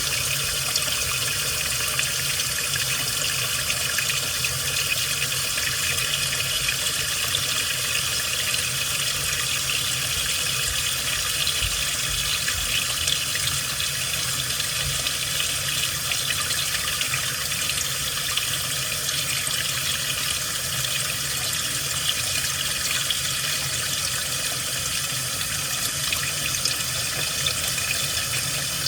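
Washing machine running with water rushing steadily inside the drum, an even unbroken wash.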